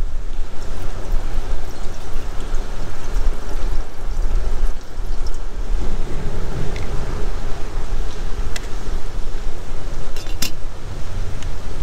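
Water poured from a plastic bottle into a metal kettle on a canister stove, over a steady low rumble. Near the end, a couple of sharp clicks as the lid is set on the kettle.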